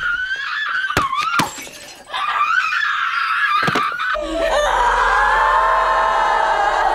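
Women screaming in rage: a high shriek broken by sharp crashes of things being smashed about one and one and a half seconds in and again near four seconds, then a group of women wailing together in many overlapping voices.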